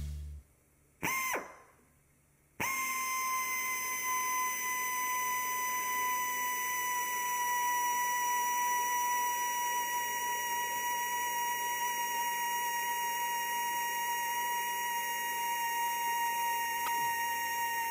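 Handheld pneumatic tool running: a short blip about a second in, then from about two and a half seconds a steady high whine of the air motor with air hiss, its pitch sagging slightly as it runs.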